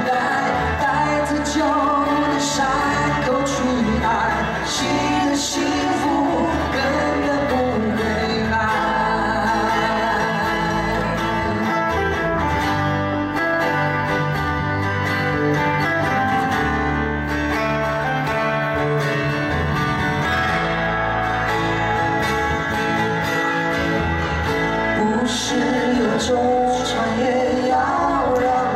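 Live acoustic duo performance: two acoustic guitars, one of them a twelve-string, playing together under male singing, amplified through the stage's sound system.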